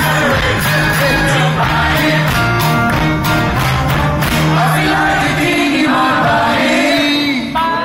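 A live band playing a medley, with a man singing lead into a microphone over a steady bass line.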